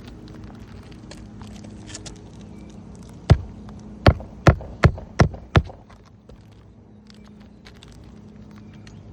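Hand hammer driving a roofing nail through an asphalt shingle: six sharp blows in quick succession, the first on its own and the next five about half a second apart.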